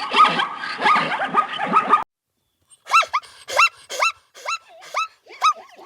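Animal calls: a dense run of overlapping yelping, barking calls, then after a short break a series of about eight short, high chirps in quick succession.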